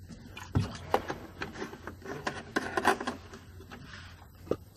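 Irregular clicking and knocking at the coolant expansion tank of a Porsche 996 Turbo as the filler tube is handled and pulled out of the filler neck, a cluster of about two and a half seconds with one more knock near the end.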